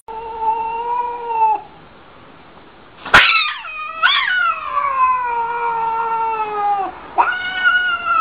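Cat yowling in long drawn-out calls: a short call, then after a sharp click about three seconds in, a long call that slides down in pitch and another that follows it. It is the defensive yowl of a cat standing with its back arched and fur puffed.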